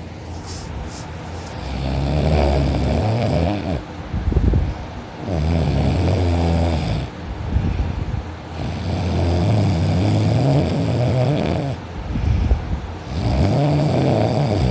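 A person snoring heavily while sleeping deeply on their back: four long, loud snores, three to four seconds apart, with quieter breaths between them.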